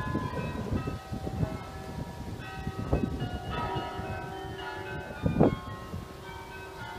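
Church bells ringing, several bells of different pitch struck in turn and sounding over one another, with gusts of wind buffeting the microphone.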